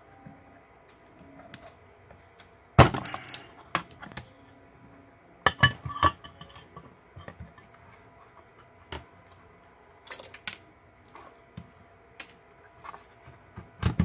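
Metal clinks and knocks as the finned aluminium heatsink cover of a server power supply is lifted off its metal case and set down on a hard bench. The loudest knock comes about three seconds in, a quick cluster follows near six seconds, and another sharp knock lands at the end.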